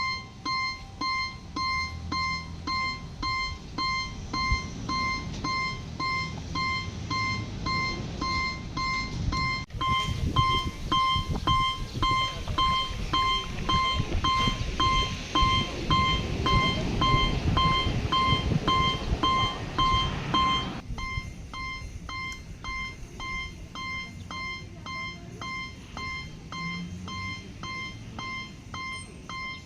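Electronic railway-crossing warning bell ringing its repeating 'kan-kan' tone, about two strikes a second. For about ten seconds in the middle a second, higher tone joins and a rushing rumble swells, then both drop away and the ringing carries on more quietly.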